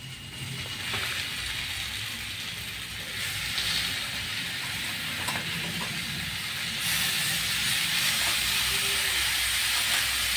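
Wet raw chicken pieces sizzling as they go one by one into hot oil and onion-tomato masala in a kadhai. The sizzle grows louder in steps, about three and about seven seconds in, as more pieces go in.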